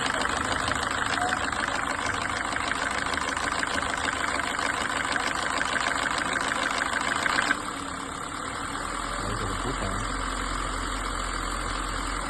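2017 Kia Forte engine running with the abnormal engine noise that marks the fault to be repaired. About seven and a half seconds in, the sound drops abruptly, losing its upper hiss, and a low steady hum remains.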